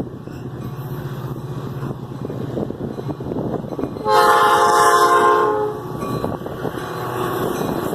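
Metra F40PH diesel locomotive's multi-note horn sounding one blast of about a second and a half, about four seconds in, over the steady low rumble of its EMD 16-645 two-stroke V16 diesel engine.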